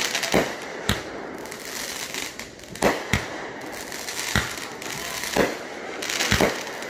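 Aerial fireworks going off: about eight sharp bangs at irregular intervals as shells launch and burst.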